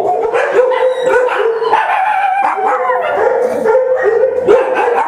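Shelter dogs in their kennels barking and howling, a loud, continuous din of several voices at once.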